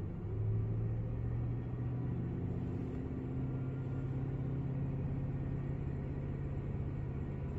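Car engine running at raised revs, held fairly steady, its pitch creeping slightly upward.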